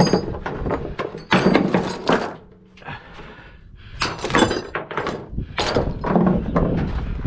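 Steel tie-down chains and lever load binders clanking and rattling as they are picked up and dropped on a wooden trailer deck, in repeated bursts with a short lull in the middle.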